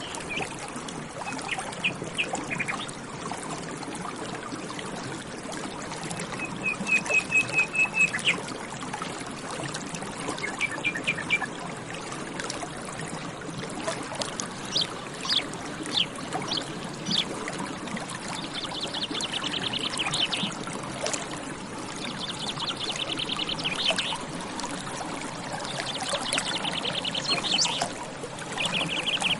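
Water trickling and pouring steadily, with small birds calling and singing over it: short series of high notes, then several rapid trills of about two seconds each in the second half.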